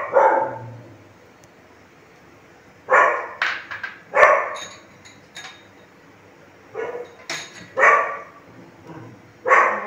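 A dog barking, short sharp barks in clusters of two or three, with gaps of a few seconds between the clusters.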